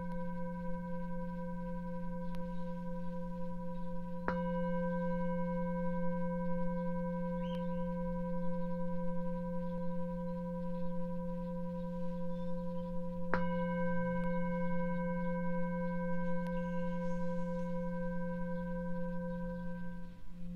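Tibetan singing bowl struck twice with a padded mallet, about four seconds in and again some nine seconds later. Between strikes it rings on steadily, a low hum with several higher, thinner tones above it.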